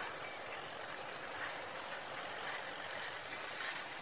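Steady, even background hiss with no distinct event.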